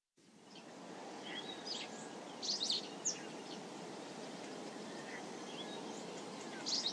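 Outdoor nature ambience fading in: a steady low rush of background noise with scattered short, high bird chirps, bunched a few seconds in and again near the end.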